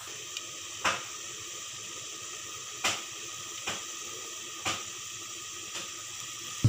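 Ground beef simmering and sizzling in a frying pan under a glass lid: a steady hiss with a few sharp pops at irregular spacing.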